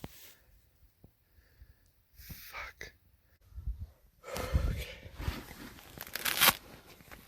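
Rustling and crunching handling noises with a few sharp knocks, loudest in the second half.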